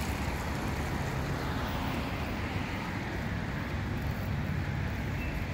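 Steady rumble of distant engines from construction machinery and road traffic.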